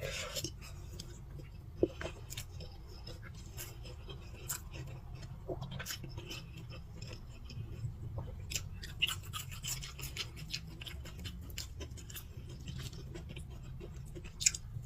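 Close-miked eating: a person chewing and crunching food, with irregular crisp crackles and wet mouth clicks, over a steady low hum.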